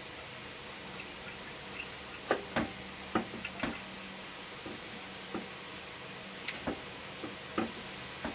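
Kitchen knife clicking and tapping on a wooden cutting board as a frog's belly is slit open and gutted: a dozen or so scattered knocks over a steady low hum. Twice there is a quick run of short high chirps, about two seconds in and again near six and a half seconds.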